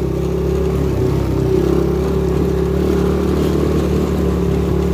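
250cc Lida ATV engine running at a steady speed while riding, its pitch holding even throughout.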